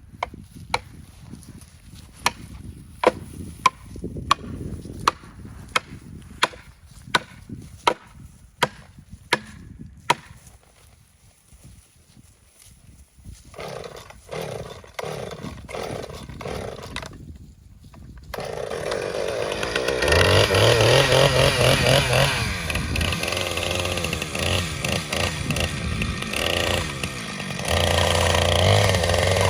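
A felling wedge is driven into the saw cut of a small dead elm with about a dozen sharp, evenly spaced strikes, roughly one every 0.7 seconds. At about 18 seconds a Husqvarna 455 Rancher two-stroke chainsaw begins running and cutting, revving higher twice.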